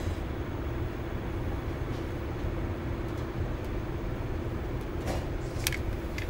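Steady low background rumble with a faint steady hum, with a few faint ticks about five to six seconds in; the senko hanabi being lit makes no clear sound of its own yet.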